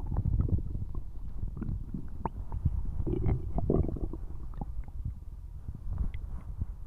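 Human stomach rumbling and gurgling loudly: a continuous low growl with many quick bubbling pops, strongest about three to four seconds in.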